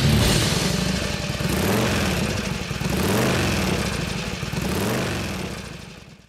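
Carberry Enfield V-twin motorcycle engine revving up and back down several times, then fading out at the end.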